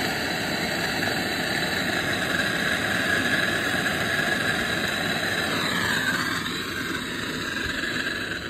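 Soldering torch flame burning with a steady roar while copper pipe joints are soldered; it dies away near the end.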